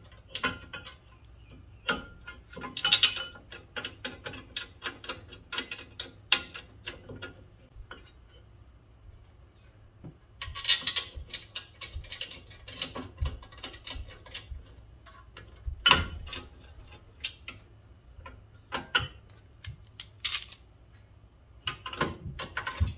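Ratchet wrench clicking in short bursts with pauses between, as brake caliper bracket bolts are run in, mixed with scattered metal clinks and knocks.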